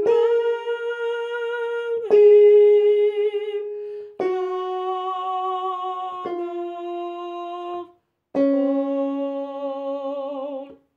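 A woman singing one hymn harmony line without accompaniment, in five long held notes of about two seconds each, the last one lower and wavering slightly.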